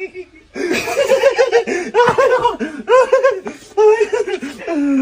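High-pitched laughter in rapid, repeated bursts, starting about half a second in and trailing off with a falling note near the end.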